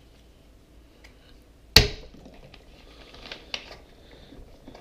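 Metal multitool pliers and a plastic soda bottle being handled while dry ice is pushed into the bottle's neck. One sharp clack comes about two seconds in, then a few lighter clicks and taps.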